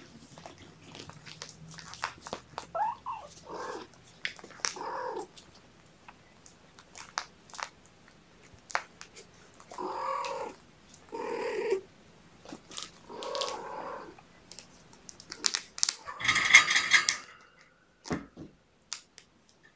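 Young kittens, about five weeks old, mewing in several short calls over small clicks and rustles of handling. A louder, longer, harsher cry comes near the end, followed by a soft thump as a kitten jumps down.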